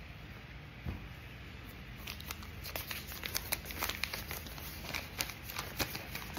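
Paper crinkling and rustling as a folded note is handled and opened, a run of irregular small crackles and ticks starting about two seconds in.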